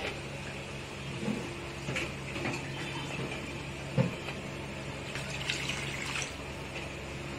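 Steady hiss of a pot of curry simmering on a gas burner, with a few light clinks; near the end, liquid is poured into the pot.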